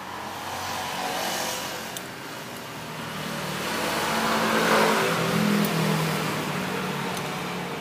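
A motor vehicle driving past on the road: engine and tyre noise swelling to a peak about halfway through, then fading away.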